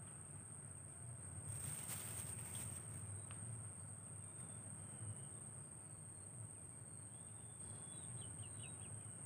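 Outdoor ambience: an insect buzzing at a steady high pitch, with birds chirping in short whistles and a quick run of falling notes near the end. A brief rustling noise comes about one and a half seconds in.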